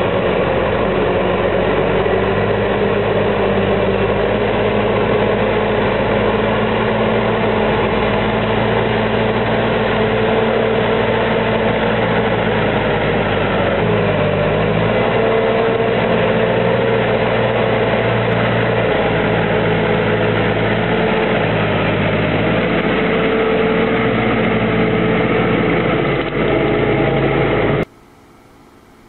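Diesel engine of a forestry tractor hauling a loaded log trailer, running hard while the tractor is stuck in deep mud, its note rising and falling a little. The engine sound cuts off abruptly about a second before the end.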